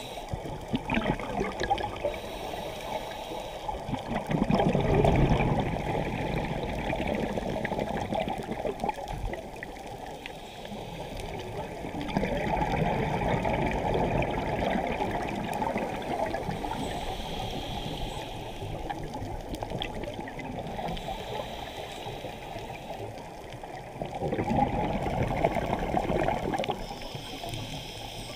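Scuba diver's breathing heard underwater: exhaled bubbles from the regulator rushing and gurgling in surges several seconds apart, with a fainter hiss in between.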